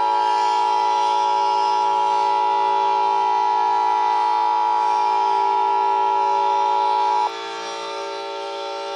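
Emergency Alert System attention signal: a loud, steady electronic alarm tone held for about seven seconds, over a lower steady droning tone. The alarm tone cuts off abruptly near the end, leaving the drone.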